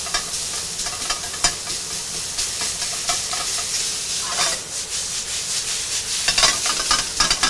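Ground meat sizzling in a hot carbon steel wok, with a utensil repeatedly scraping and clicking against the pan as the meat is broken up and stirred.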